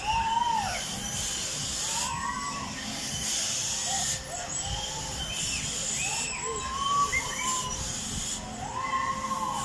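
Animal calls, many drawn-out cries each rising then falling in pitch, several overlapping at different pitches. A steady hiss comes and goes in stretches of about a second.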